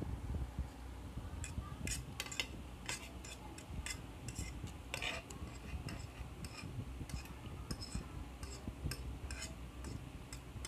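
Metal spoon and fork clicking and scraping against a plate while eating instant noodles, a scattered run of light, sharp clicks starting about a second and a half in and dying away near the end.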